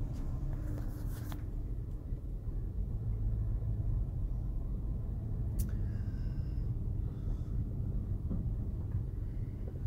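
Car engine and road rumble heard from inside the cabin at low speed, with a single sharp click about five and a half seconds in.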